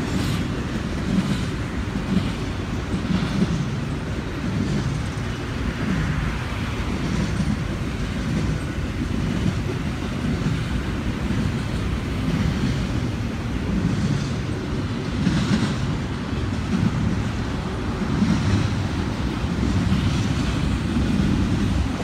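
Double-stack container freight train rolling past: a steady rumble of steel wheels on rail, with a regular clicking from the passing well cars' wheels about once a second.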